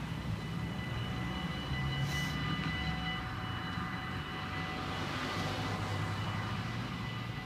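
Dutch level-crossing warning bells ringing steadily as the half-barriers come down, more bells joining in. A car drives across the crossing about five seconds in.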